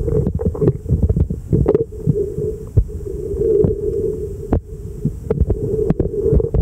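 Sound picked up by a submerged camera: a muffled, uneven low rumble of moving water with a steady hum, broken by irregular sharp clicks and knocks.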